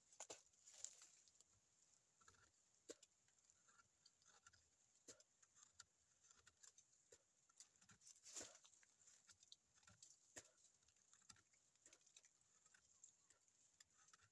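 Teeth biting and tearing at a tree trunk's bark: faint, scattered scrapes and clicks, the loudest about eight seconds in, over a faint steady high hiss.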